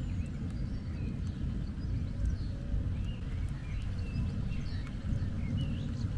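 Low continuous rumble of thunder following a lightning strike, with small birds chirping here and there.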